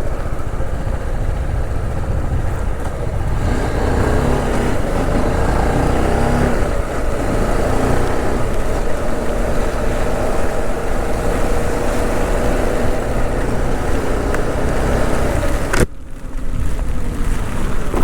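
Motorcycle riding in heavy rain, the engine note rising and falling under steady wind and rain noise on a helmet-mounted camera. Near the end a sharp click, after which the sound turns duller.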